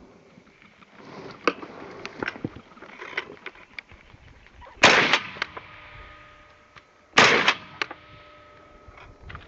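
Two shotgun shots about two and a half seconds apart, each trailing off in a short echo, fired at a flushed covey of chukar partridges. Lighter clicks and rustles come before the first shot.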